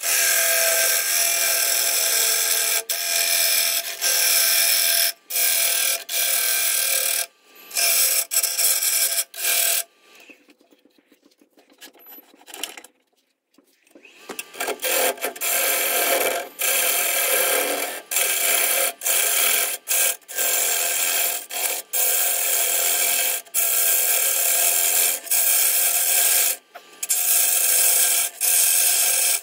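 A gouge cutting a spinning eucalyptus burl bowl blank on a wood lathe: a loud, hissing, scraping cut made in a run of passes, each broken off sharply as the tool comes off the wood. Around the middle the cutting stops for about four seconds, then resumes.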